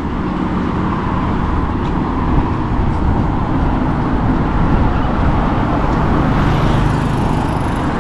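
Steady road traffic noise, with a vehicle passing more loudly about three quarters of the way through.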